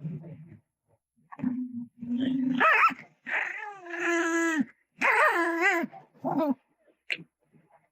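A dog vocalizing: two short low growls, then three drawn-out, high, wavering whining howls, the middle one the longest.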